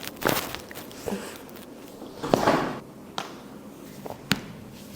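Several sharp cracks and clicks of a chiropractic adjustment, spread irregularly, the loudest about two seconds in with a brief rustle after it.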